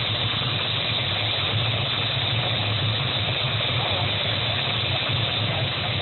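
Turbine engine and rotor of a NOTAR police helicopter running steadily, a constant low hum under an even rushing noise.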